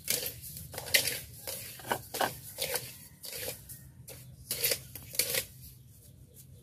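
Dry rice grains being stirred in a hot pan to toast them, in irregular scraping, rustling strokes that die away about five seconds in.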